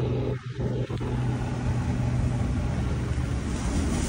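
Helicopter passing, a steady low drone that fades out near the end, over the wash of surf. The drone cuts out for a moment just under half a second in.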